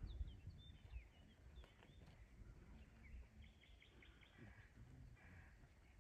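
Faint chirping of small birds, many short calls, over a low rumble.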